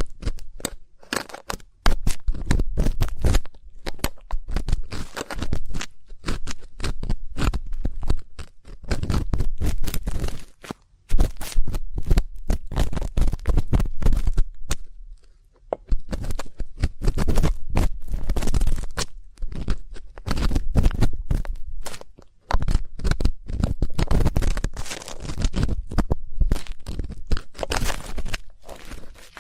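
Ear-cleaning ASMR: an ear pick scraping and rubbing close against the microphone, giving crackly scratching strokes in runs of a second or few with short pauses between, and a deep rumble under the strokes.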